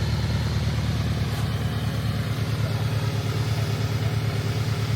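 An engine idling steadily: a low, even, rapidly pulsing hum.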